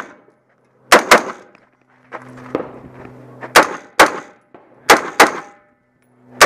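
AR-15 rifle fired in quick pairs of shots, each crack with a short ringing tail: three double shots one to two seconds apart, then another shot near the end.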